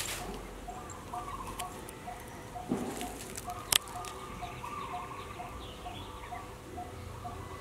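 Birds calling: a short note repeated evenly about twice a second under a higher cooing phrase that comes back every second or so, with a sharp click near the middle.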